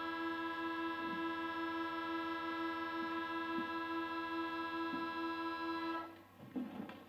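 A sustained musical chord of several tones, held steady and then cut off about six seconds in, with a few faint knocks underneath.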